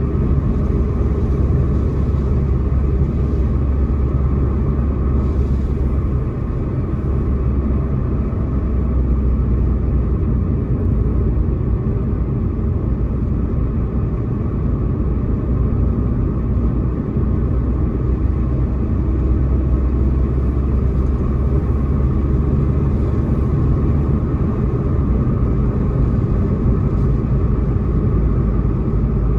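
Steady low rumble of a car being driven: engine and tyre noise on the road.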